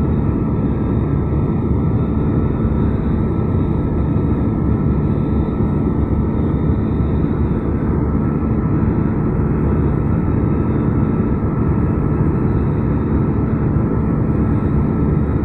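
Steady cabin noise of a jet airliner climbing in flight: engine and airflow noise with a constant low hum.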